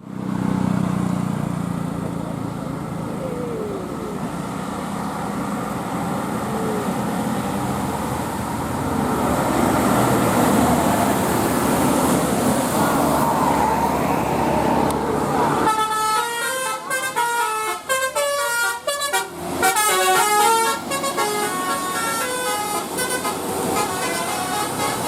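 Steady bus engine and traffic noise, then about two-thirds of the way in a multi-tone 'telolet' bus horn starts playing a melody that steps from note to note, with a short break partway through.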